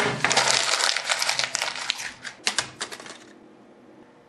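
A sheet of paper rustling and crackling loudly under the hands in a dense run of crackles, stopping abruptly a little over three seconds in.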